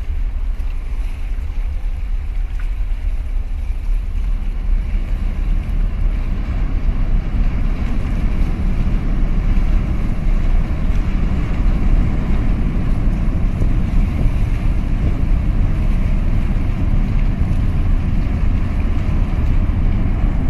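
Low, steady rumble and rushing water from a 366 m container ship passing close, growing slightly louder as the bow draws nearer, with wind buffeting the microphone.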